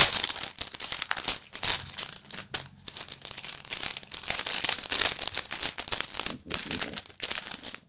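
Thin clear plastic wrapper crinkling and tearing as a disposable plastic spoon is unwrapped, a rapid continuous crackle with a couple of short pauses.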